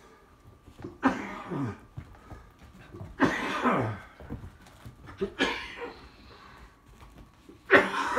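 Miniature dachshund's play barks: four short outbursts about two seconds apart, each sliding down in pitch.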